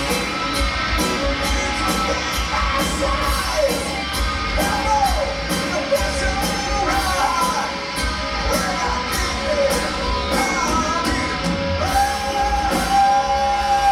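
Heavy metal band playing live: electric guitars, bass and a drum kit with a steady cymbal beat, under a male singer whose line ends in a long held note near the end.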